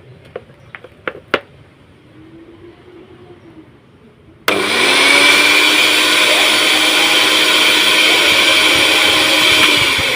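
A Miyako electric blender's motor switches on suddenly about four and a half seconds in and runs steadily at speed. It is preceded by a few sharp clicks.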